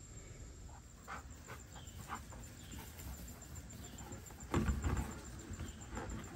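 Dogs' paws thudding on turf as they run across a lawn, loudest as a quick run of low thumps about four and a half seconds in, with scattered soft rustles and ticks before it.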